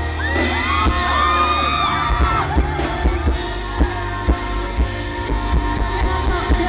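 Live band music with a steady drum beat and singing, with high sliding whoops in the first two seconds.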